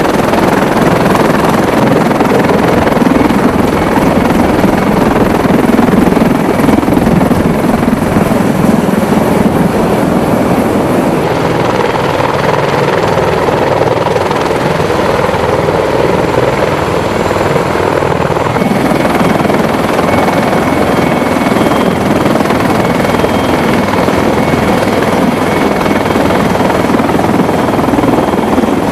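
CH-53E Super Stallion heavy-lift helicopter running with its rotors turning: loud, steady turbine and rotor noise. The sound changes in character about 11 and 18 seconds in.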